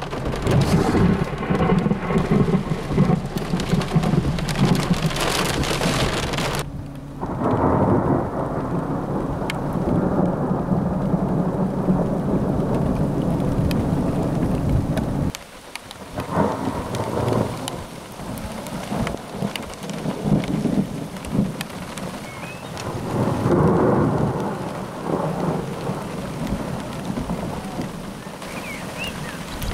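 Heavy rain on a car's windshield, then steady rain falling outdoors with thunder rumbling several times. The sound changes abruptly twice, about a quarter and halfway in.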